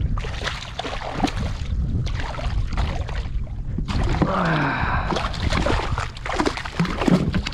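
Irregular splashing and sloshing at the surface beside a kayak as a hooked speckled trout thrashes and is grabbed by hand. A brief falling squeak comes about four seconds in.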